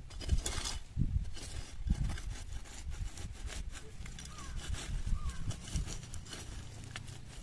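Metal ladle scraping and raking through ash and charcoal embers in a stone hearth, with irregular scrapes and small clinks, as it digs for leaf-wrapped fish roasted in the embers.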